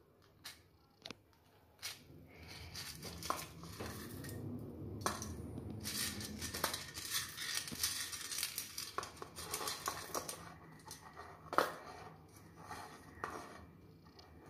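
Fingers sorting and picking up black peppercorns and other whole spices on a stainless steel plate: small scattered clicks and scrapes of the spices on the metal, starting about two seconds in and thinning out near the end.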